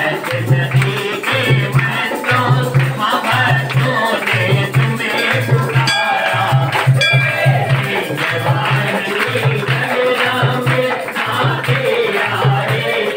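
Hindi devotional song (bhajan) with a singing voice over a steady low drum beat of about two to three beats a second and a jingling tambourine or shaker.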